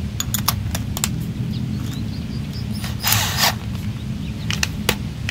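Handling noise from a spade bit and drill: several sharp clicks and a brief scraping rustle about three seconds in, over a steady low hum.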